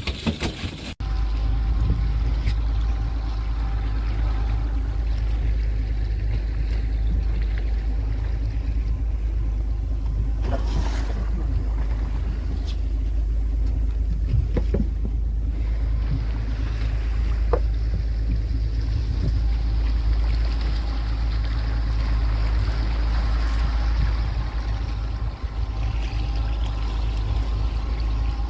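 Motorboat engine running steadily, an even low drone with no change in pitch.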